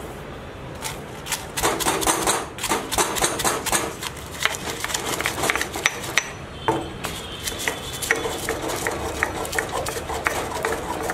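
Stone pestle pounding dried red chillies in a heavy stone mortar: a quick, irregular run of knocks with crushing between them, starting about a second in.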